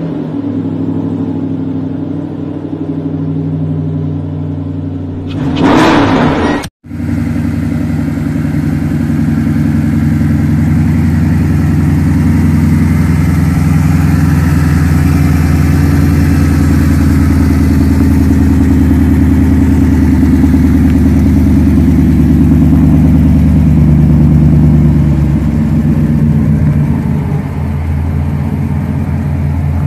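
5.7-litre Hemi V8 in a VW Beetle hot rod running at a steady, pulsing idle. About six seconds in there is a brief louder burst, then a split-second dropout, and the engine runs on steadily.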